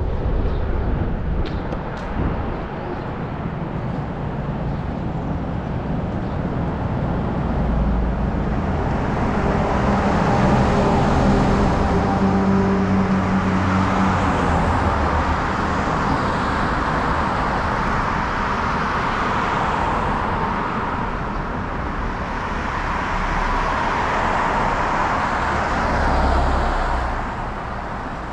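Road traffic going by close to a moving bicycle: a steady rush of tyres and engines that swells as vehicles pass, about ten seconds in and again near the end, over a low wind rumble on the microphone.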